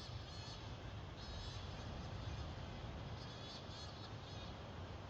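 Bats flying overhead at night, giving short, high, buzzy squeaking chatters in several separate bursts: one at the start, a longer run about a second in, and another cluster a little past the middle. A steady low rumble runs underneath.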